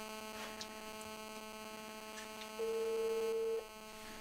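Telephone ringback tone heard through a phone's speakerphone: one steady beep about a second long, near three seconds in, four seconds after the previous ring, over a steady electrical hum.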